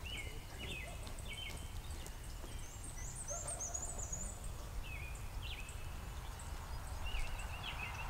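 Wild birds calling: several short, repeated chirping phrases, with a higher twittering about three seconds in, over a low steady rumble.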